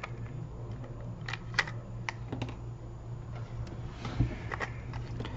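Scattered light clicks and taps, with one louder knock about four seconds in, over a steady low hum.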